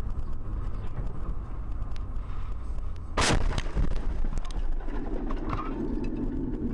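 A car windshield is struck hard by something flung from an oncoming truck and cracks: one loud crack about three seconds in, then a couple of smaller knocks. Steady road noise runs underneath, heard from inside the car's cabin.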